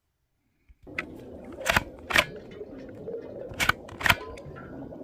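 Plastic View-Master viewer's lever clicking as the reel is advanced: two press-and-release pairs of sharp clicks about half a second apart, after a single click about a second in.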